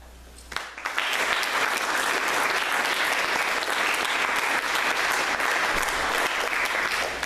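Audience applause: many people clapping together, starting about half a second in, holding steady, and stopping just before the end.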